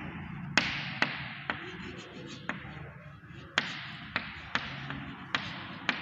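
Chalk writing on a chalkboard: a string of about nine sharp taps at irregular intervals, each trailing off in room echo.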